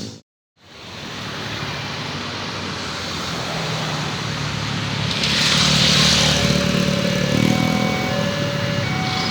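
Road traffic running at a railway level crossing, a steady engine hum with a hiss passing about five seconds in. From about seven seconds a repeating electronic beeping tone starts: the crossing's warning siren.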